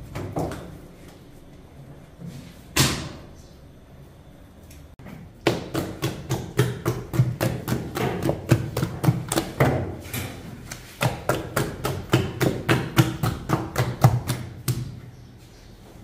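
A single thump about three seconds in, then a long run of sharp knocks and taps, about three a second, from bakery work at a traditional sangak bread oven.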